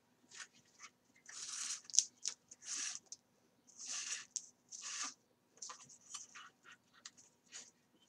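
Thread being pulled through the stitching holes of paper signatures during coptic stitching: about four short rasping swishes in the first half, then lighter paper rustles and small ticks.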